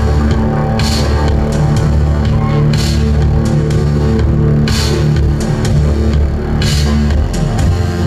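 Synthpop band playing live, without vocals: a heavy, steady synth bass line under a pulsing beat, with a bright cymbal-like swell about every two seconds.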